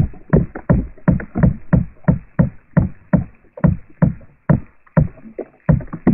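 Insect vibrational signal picked up through a meadow plant and played back as sound: a steady train of short, low-pitched knocking pulses, about three a second.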